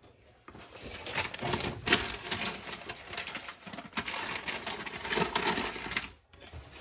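Folded brown paper bag crinkling and rustling as it is handled, with many small clicks and knocks, stopping about six seconds in.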